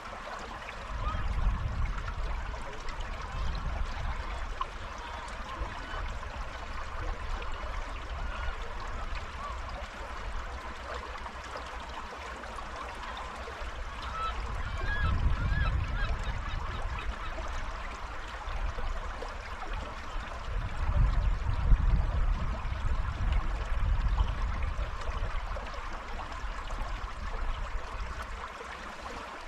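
River water rushing steadily over stones, with low gusts of wind buffeting the microphone three times: early on, around the middle, and longest later.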